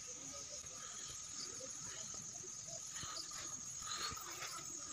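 Night insects trilling steadily at a high pitch, with faint scattered ticks in the background.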